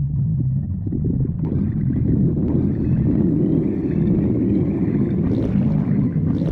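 Stomach growling: a continuous low rumble that turns into a louder, bubbling gurgle about a second and a half in.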